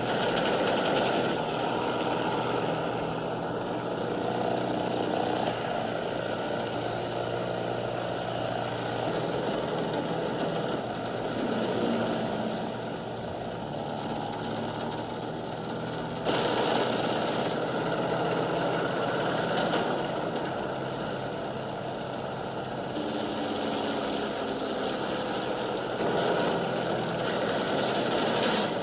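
Aircraft engine drone running steadily throughout, with a sudden jump in brightness and loudness about 16 seconds in.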